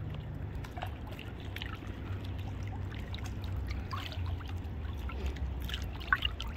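Swimming pool water splashing and lapping around a man and a toddler, small splashes and drips over a steady low rumble, with one sharper tick near the end.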